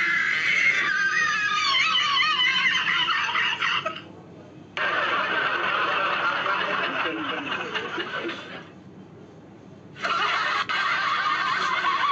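High-pitched laughter in three stretches, broken by two short pauses.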